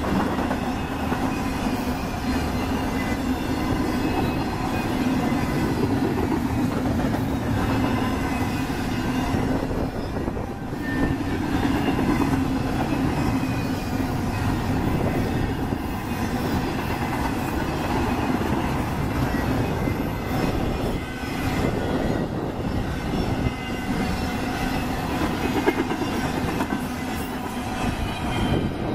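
Intermodal freight cars carrying trailers and double-stacked containers rolling past: a steady roll of steel wheels on rail, with thin high-pitched wheel squeal running through it.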